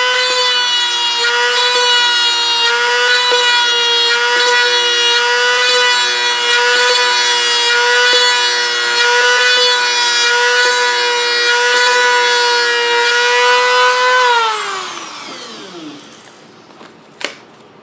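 Dremel rotary tool with a brass-tube bit running at a steady high whine, with a faint lower note coming and going about once a second. About 14 seconds in it is switched off and the whine falls in pitch as it spins down, followed by a single click.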